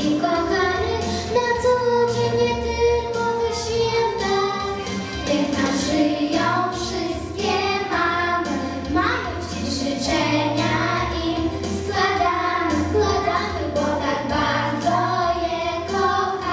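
Group of young girls singing together into microphones, amplified through a loudspeaker, over an instrumental accompaniment with a steady bass line.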